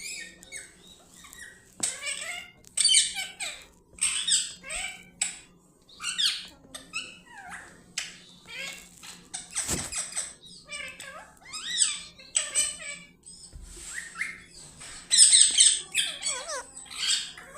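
A pet parrot squawking and chattering in a quick series of short, high-pitched calls, the loudest burst coming near the end, with a few falling screeches.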